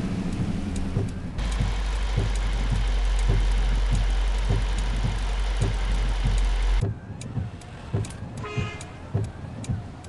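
Toyota Tundra driving in the rain, heard from inside the cabin: a steady low rumble that drops away after about seven seconds, with scattered clicks. A brief car-horn toot sounds a little past eight seconds.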